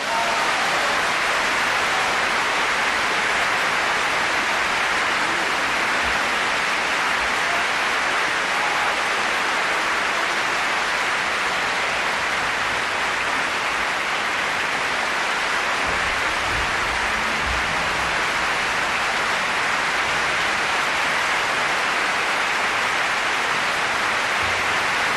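Large concert-hall audience applauding, a dense, steady clapping with no music under it.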